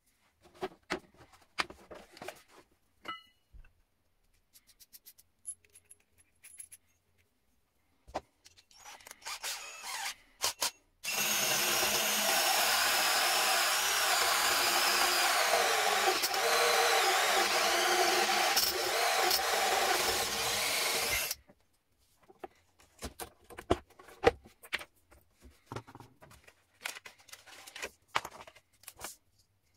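Cordless drill running a hole saw through the chipboard side of a wooden box, loud and steady for about ten seconds, starting and stopping abruptly. Before and after it come scattered clicks and knocks of handling.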